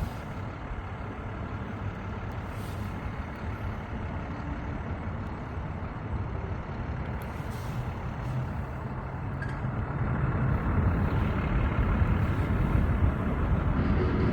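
A steady low rumble of outdoor noise, growing louder from about ten seconds in.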